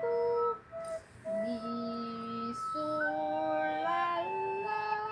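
Recorder playing a slow melody: clean held notes, one after another, with short breaks early on and a stepwise climb in pitch near the end.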